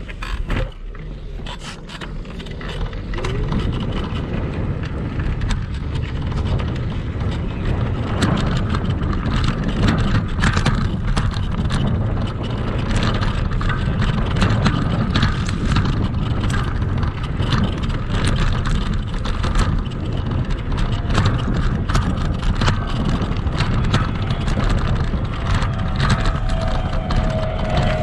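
Kugoo Max Speed Pro electric scooter riding over rough sandy ground, heard from its front fender: a steady rumble with constant rattling and knocks as it jolts over the bumps. A faint whine slides down in pitch near the end.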